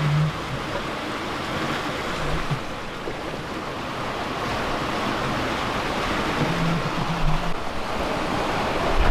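Sea water rushing and breaking around a sailboat running fast before strong wind and a large following sea, with wind noise mixed in.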